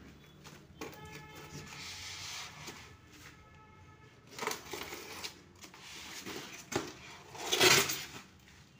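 Plastic packaging rustling and crinkling as a package is unwrapped by hand, with a louder burst of rustling near the end.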